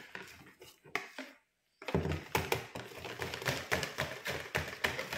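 Wire whisk beating cake batter in a plastic mixing bowl: quick, even clicking and tapping of the wires against the bowl, about five strokes a second. A few scattered clicks at first, then a short silent break, then the steady beating from about two seconds in.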